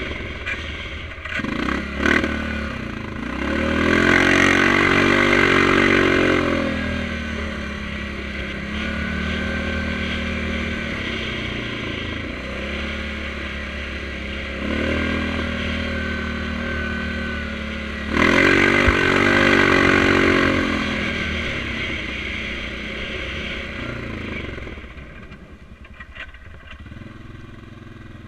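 Yamaha Grizzly 700 ATV's single-cylinder four-stroke engine through an HMF aftermarket exhaust, under way. It revs up twice, about four seconds in and again about eighteen seconds in, runs steadily between, and quietens near the end.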